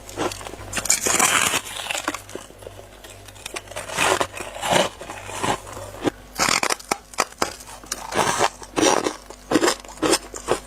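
A person biting and chewing squeaky white freezer-frost ice close to the microphone, in irregular crunches every half second to a second.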